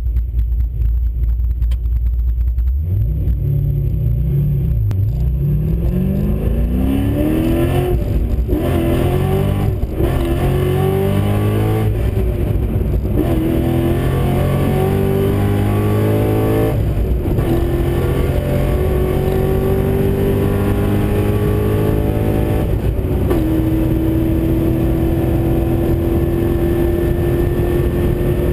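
Corvette Z06's 7.0-litre V8 heard from inside the cabin on a full-throttle standing-start run: a low rumble for about three seconds, then the launch, with the engine note climbing and dropping back at each of about five upshifts. After the last shift, near the end, it holds a long steady note in top gear that rises only slowly with speed.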